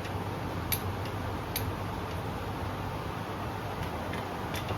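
Click-type torque wrench clicking sharply as it reaches its set torque on the connecting-rod bolts of newly installed pistons. There are three clicks, two close together early and one near the end, over a steady low hum.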